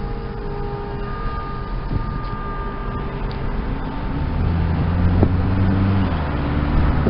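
Steady road and engine noise from a moving car. About four seconds in, background music with a low, stepping bass line comes in and grows louder.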